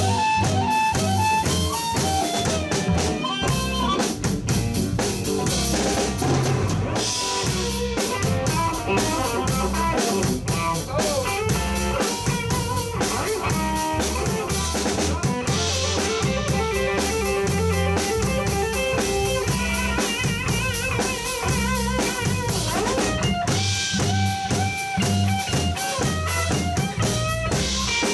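Live blues band playing an instrumental break: drum kit with rimshots and bass drum keeping a steady beat under bass and a soloing lead line.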